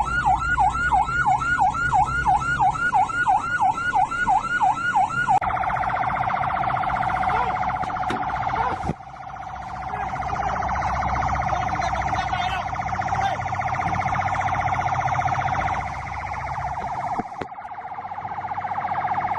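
Patrol boat's electronic siren in a fast yelp, sweeping up and down about three times a second, switching about five seconds in to a much faster, shrill warble that runs on. A low engine rumble lies underneath.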